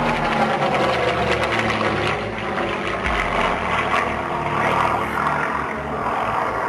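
Single-engine propeller aircraft flying a display overhead, its piston engine droning steadily, with the pitch falling over the first couple of seconds as it passes.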